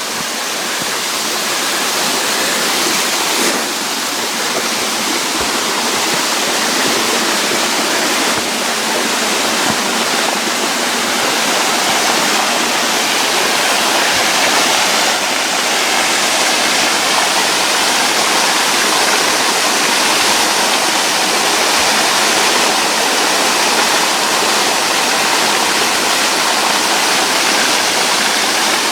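Waterfall rushing close by: a loud, steady roar of falling water.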